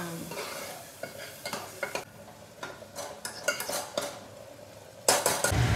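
Metal ladle stirring thick masala in a metal cooking pot, clinking and scraping against the pot, over light sizzling of the cooking masala. Near the end, a louder steady noise with a low hum suddenly cuts in.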